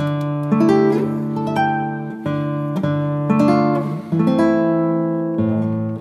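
Background music: an acoustic guitar playing plucked notes and chords, a new note or chord about every half second to a second.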